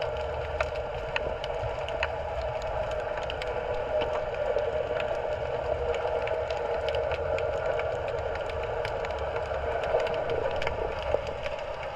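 Underwater ambience picked up by a GoPro: a steady low rumble and a constant mid-pitched drone, with scattered sharp clicks throughout.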